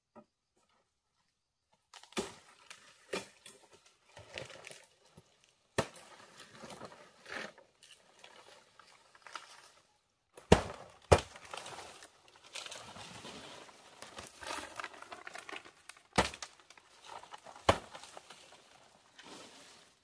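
Leaves and twigs rustling and crackling as vegetation is handled, with a string of sharp snaps or knocks, the loudest pair about halfway through. It starts about two seconds in.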